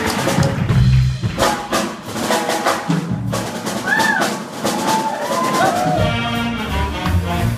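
Live jazz ensemble playing a swing number, with piano, drum kit, bass, guitar and saxophones. The bass drops out briefly in the second and third seconds, and a few short notes bend up and down around the middle.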